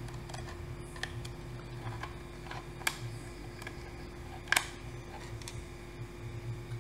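Small hardware being handled: scattered light clicks and taps of the SSD, its caddy and screws being fitted into the laptop, with two sharper clicks in the middle, over a steady low hum.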